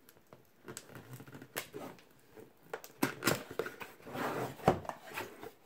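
Cardboard product box being opened by hand: the lid rubbing and scraping against the box as it is worked loose, with scattered taps and clicks and a longer rustle about four seconds in.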